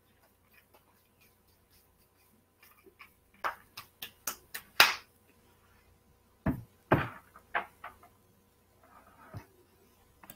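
Scattered computer mouse clicks and light knocks, short and irregular, several seconds apart at first and then closer together. The loudest are two deeper thumps a little past the middle.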